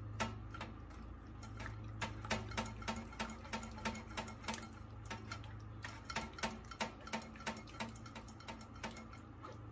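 A spoon scraping and clicking against a fine-mesh strainer, a few sharp clicks a second, as a thick roux sauce is pushed through the mesh.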